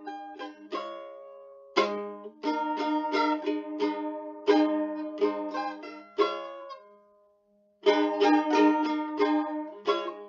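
Background music: a plucked-string instrumental played as a run of separate notes, pausing briefly about seven seconds in.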